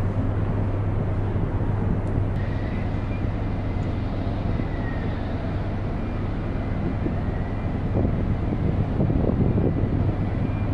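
Steady low hum of an ocean liner's machinery and ventilation on the open deck, under a wash of outdoor wind noise.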